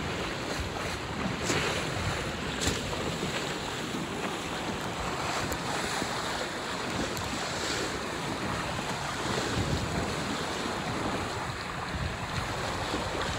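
Strong wind buffeting the microphone over the steady rush of waves and spray along a Hobie 14 catamaran sailing fast in 25–30 knots, with two brief sharp taps in the first few seconds.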